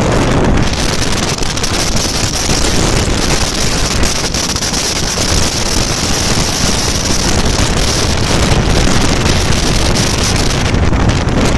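Steady wind rush on the microphone of a motorcycle riding at highway speed, mixed with engine and road noise.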